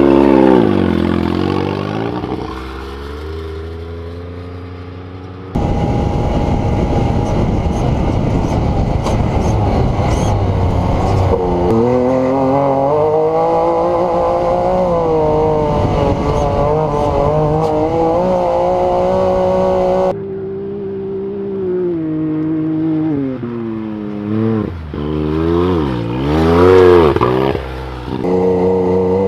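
Can-Am Maverick X3 side-by-side's turbocharged three-cylinder engine running hard in the dunes, its pitch rising and falling with the throttle. The sound changes abruptly twice, and near the end there is a quick rev up and back down.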